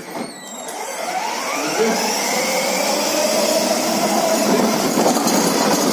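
Electric motors and gearboxes of a 4x4 kids' ride-on jeep running, a grinding whir with a whine that rises in pitch as it picks up speed over the first few seconds.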